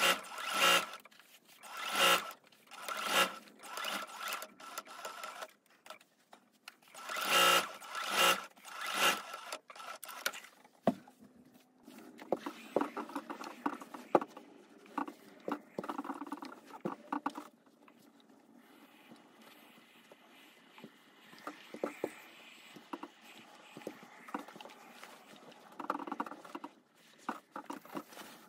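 Juki sewing machine stitching in short runs, about six bursts in the first ten seconds. After that come quieter soft rustles and clicks of fabric being handled and an iron moved over it.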